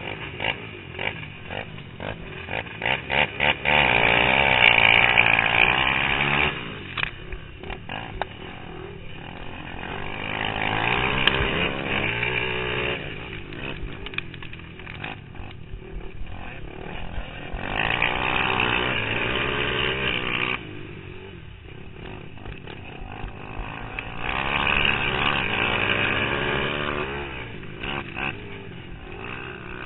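Racing three-wheeler's 450 engine heard up close. It gives short revs at first, then runs at full throttle from about four seconds in as it pulls away. After that it rises and falls in repeated waves, getting on the gas down each straight and backing off for the turns, with other trikes' engines around it.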